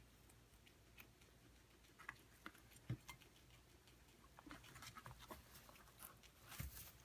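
Rabbit chewing lettuce and cucumber: faint, irregular crunches and clicks, busier in the second half, with a louder crunch near the end.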